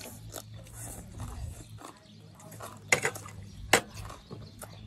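Close-up eating sounds: chewing a mouthful of crunchy stir-fried green vegetable stems, with many small wet crackles and mouth clicks. Two sharp, louder clicks come about three seconds in, over a low steady hum.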